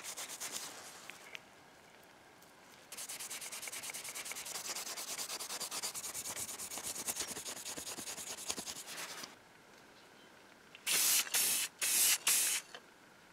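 A cloth rubbed back and forth over a small metal latch plate in quick, even strokes for several seconds. Near the end, four short, loud hissing bursts of spray primer.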